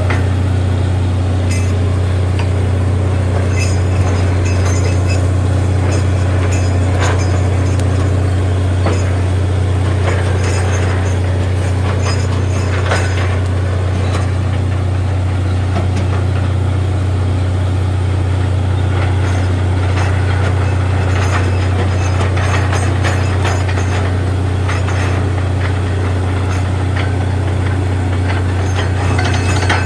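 Borewell drilling rig running: a loud, constant low engine drone with scattered metallic clicks and knocks over it.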